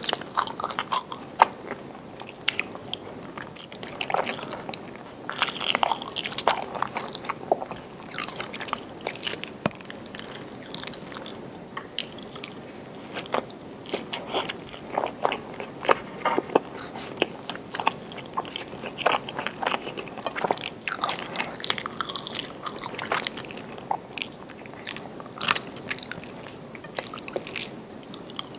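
A person chewing and biting food close to the microphone: irregular mouth clicks and crunches, with no steady rhythm.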